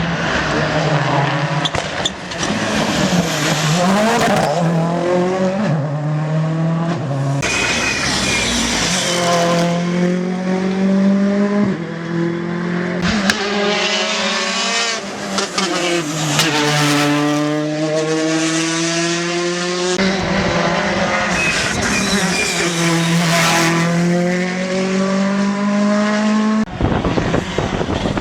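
Rally cars at full race pace on a stage, engines revving hard with pitch climbing and dropping sharply through gear changes and lifts, one car after another.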